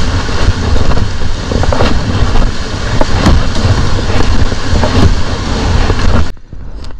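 Wind buffeting the microphone with a heavy low rumble over sea water splashing around a kayak. It cuts off suddenly near the end.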